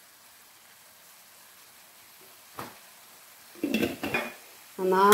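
Masala of onion, tomato and mashed roasted eggplant sizzling faintly in a stainless-steel pan, with a single clink of the steel spoon against the pan about halfway through.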